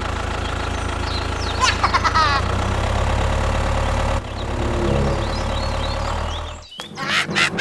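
Engine running at a steady low idle, with a brief high-pitched chirpy voice about two seconds in. The engine sound shifts a little past halfway and cuts out near the end.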